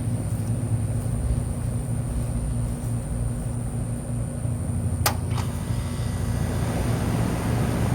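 Rheem Endeavor Line 1.5-ton central air conditioner's outdoor unit starting up: a steady low hum, two sharp clicks about five seconds in, then a rising rush of air as the condenser fan comes up to speed.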